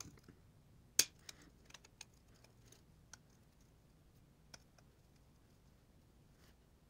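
Circlip pliers clicking and scraping against a circlip stuck fast in the bore of a 1978 Yamaha XS1100 rear master cylinder. There is a sharp metallic click about a second in, then several fainter ticks.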